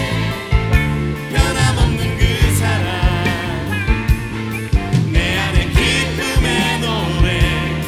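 Full worship-band song with drums and singing, carried by a steady electric bass line played on a white Fender '64 relic Jazz Bass.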